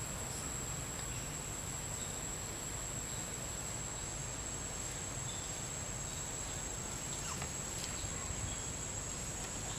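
Insects calling in a steady high-pitched drone, over faint outdoor background noise.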